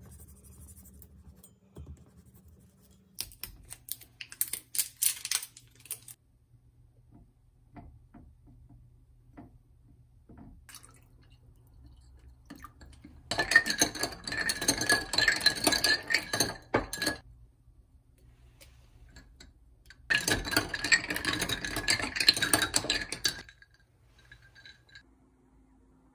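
Metal spoon stirring a drink fast in a tall glass tumbler, clattering and scraping against the glass in two loud runs of a few seconds each, with a short pause between them. Some lighter clicks come before them.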